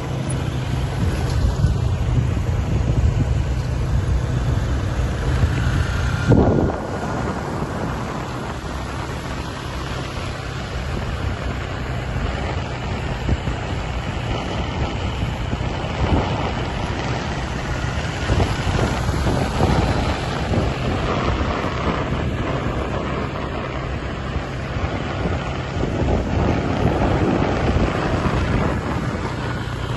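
Small motor scooter running steadily underway, heard from the seat of the moving bike, with wind buffeting the microphone. A louder gust or knock about six seconds in.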